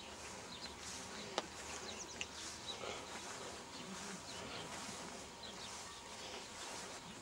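Outdoor rural ambience: a steady buzzing hiss with scattered short high chirps, and one sharp click about a second and a half in.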